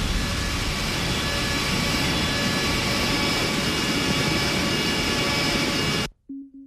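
A loud, steady wash of noise with faint steady tones running through it, which cuts off abruptly about six seconds in, leaving near silence and a faint low musical tone.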